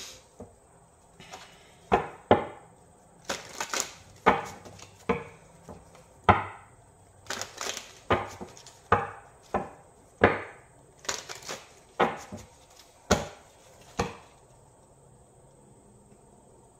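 Tarot deck being shuffled by hand: an irregular run of sharp card slaps and knocks, about one or two a second, that stops about two seconds before the end.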